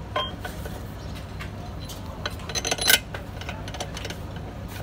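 Steel truck differential parts clinking and knocking as they are handled: a ringing metallic clink just after the start, then a quick cluster of knocks and clinks about two to three seconds in, the last one the loudest, over a steady low hum.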